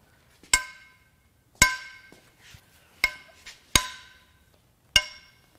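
Five sharp metallic clinks, each ringing briefly at the same few pitches, from a ratchet and socket on the outer T55 head bolts of a BMW N26 cylinder head as they are loosened.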